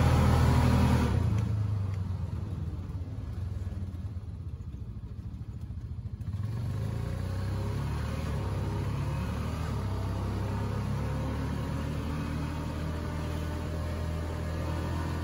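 Road vehicle driving, heard from inside the cab as a steady low engine and road rumble that steps up in level about six seconds in. Music fades out over the first couple of seconds.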